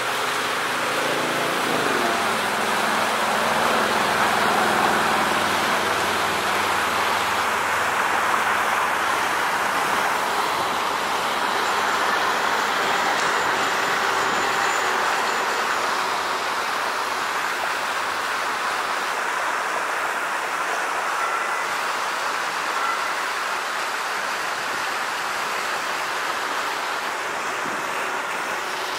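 Steady street traffic noise: cars passing and a battery-powered streetcar rolling along its track, with a motor vehicle's engine rising in pitch in the first couple of seconds.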